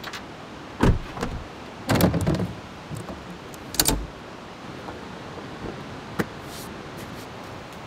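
A door on a truck camper being handled: a few sharp knocks and clunks, the loudest cluster about two seconds in and another near four seconds, over a steady background rush.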